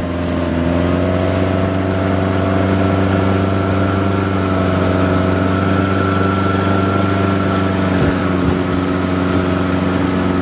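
Motorboat engine running at steady high throttle under load, towing a rider. Its pitch rises slightly about a second in and then holds steady.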